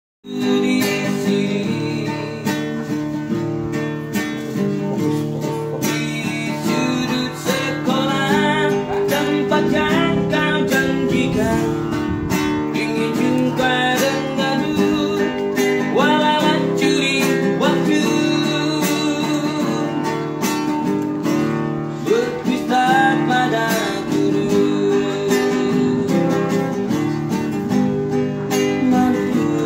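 Street buskers' acoustic guitar strumming chords, with a gliding melody line over it: an instrumental passage before the vocals come in.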